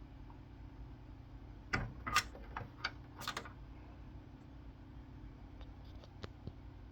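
A quick run of sharp clicks and knocks about two seconds in, then a few lighter ticks near the end, over a low steady hum.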